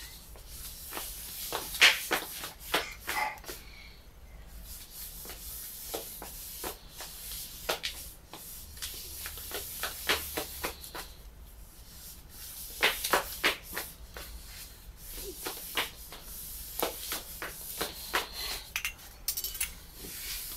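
Handling noise from a partly disassembled Sony DSC-QX10 camera being turned over and worked on by hand: irregular small clicks, taps and rubbing of its plastic and metal parts, bunched into short flurries, over a faint steady hiss.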